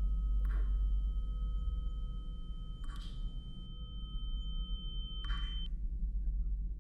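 Steady pure electronic tones, several pitches held together, over a constant low rumbling drone, with three brief soft hiss-like bursts; the tones stop about five and a half seconds in.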